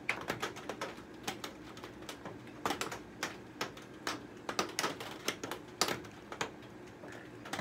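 Rain falling on the greenhouse, heard as irregular sharp taps of drops, several a second, over a faint steady hiss.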